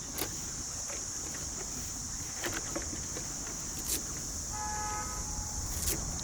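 A folding portable solar panel being unfolded and handled: a few sharp clicks over a steady outdoor rumble and a steady high hiss. A brief pitched tone sounds a little after four seconds in.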